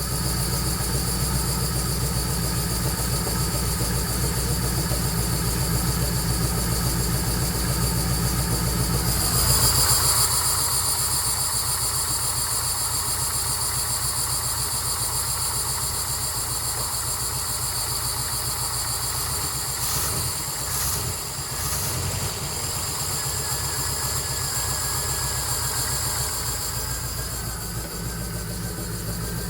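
350 small-block Chevy V8 with Holley Atomic EFI throttle-body injection, in a 1977 Jeep CJ7, running at idle. About ten seconds in the sound briefly grows louder and hissier, then settles back to a steady idle. The owner suspects a vacuum leak behind its sputtering and loss of power.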